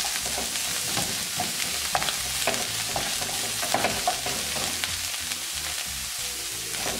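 Mushrooms and diced onions sizzling in hot olive oil in a frying pan, with a wooden spoon scraping and knocking against the pan as they are stirred. The spoon strokes thin out near the end while the sizzling carries on.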